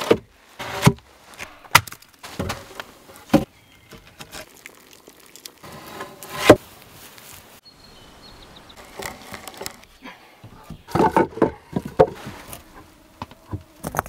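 Wooden logs and stones being handled and set down: sharp knocks and clunks at uneven intervals, with a single loud knock about six and a half seconds in and a quick run of clacks around eleven to twelve seconds in.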